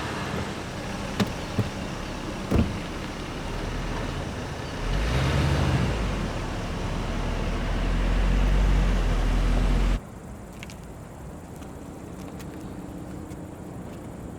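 A car engine running and pulling away, its low rumble growing louder, after a few short knocks in the first three seconds. The sound cuts off suddenly about ten seconds in, leaving a quieter steady outdoor background.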